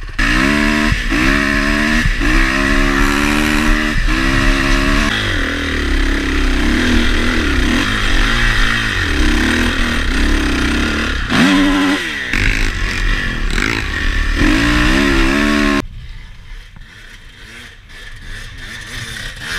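Honda CRF450R dirt bike's four-stroke single-cylinder engine heard up close from the bike while riding, revving up and down over and over as the throttle opens and closes and the gears change. About sixteen seconds in the sound cuts abruptly to a much quieter, more distant engine.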